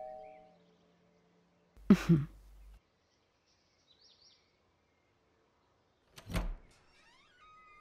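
A doorbell chime dies away at the start. A brief thump follows about two seconds in, then a short thud about six and a half seconds in as the wooden front door's latch is worked and the door pulled open. Faint bird chirps sound in between.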